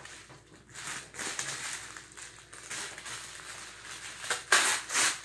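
Paper and plastic wrapping crinkling and tearing as it is pulled open by hand, in irregular rustles, with a louder burst near the end.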